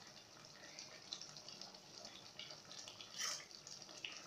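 Chicken stew simmering in a pot, faint scattered bubbling pops, with a brief louder scrape about three seconds in.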